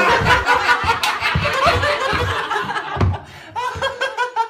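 People laughing hard: loud, choppy laughter for about three seconds, breaking into shorter pitched bursts of laughter or voice near the end.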